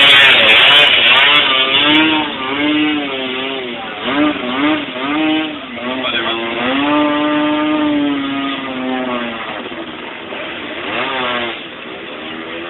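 Off-road vehicle engine revving up and down repeatedly while driving through a river. Water rushes and splashes loudly at the start.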